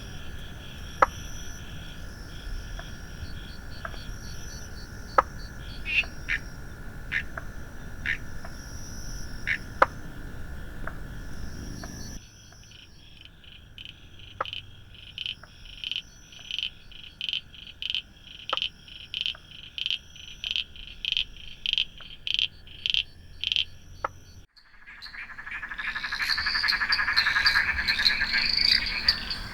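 Australian frogs calling in a chorus. First a steady high trill with sharp single calls, then a regular series of about two calls a second, and from about 25 seconds a dense, loud chorus. The sound changes abruptly twice as the recording cuts.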